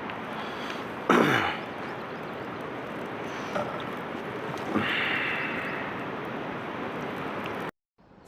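Steady background hiss, broken by two short rushes of noise: a loud one about a second in that sweeps down in pitch, and a softer one near the five-second mark that fades away.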